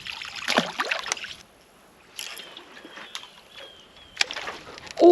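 Water splashing and sloshing beside a small boat as a hooked bass is brought in, followed by a few light knocks.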